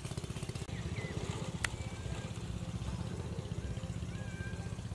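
An engine running steadily, its fast even pulsing unbroken throughout, with a single sharp click about a second and a half in and a few short high whistling calls near the end.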